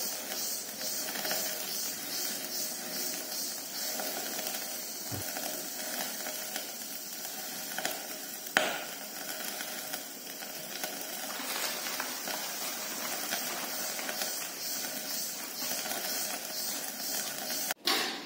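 A pot of pork boiling hard on a gas burner: a steady hiss with bubbling, and one sharp click about eight and a half seconds in.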